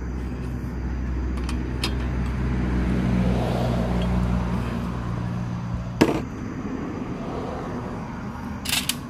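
A motor vehicle's engine hum that grows louder and then fades, broken off by a sharp click about six seconds in, with a few light clicks near the end.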